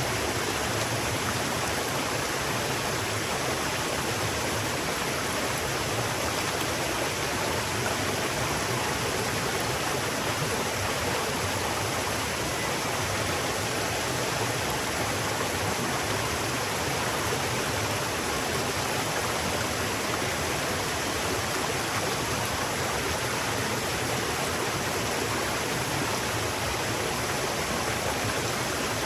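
River water flowing in a steady, even rush with no changes.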